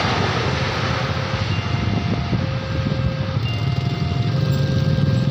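Railway level-crossing warning siren sounding its two-tone signal, switching between a lower and a higher tone about once a second, over a steady low engine rumble.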